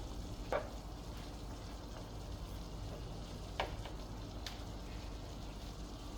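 Ground beef, onion and garlic sizzling steadily in a frying pan while being stirred, with a few short knocks of the utensil against the pan.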